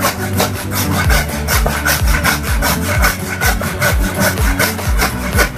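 20-inch Hasston Prohex hand saw rip-cutting a wooden block along the grain, rasping back and forth in quick, even strokes.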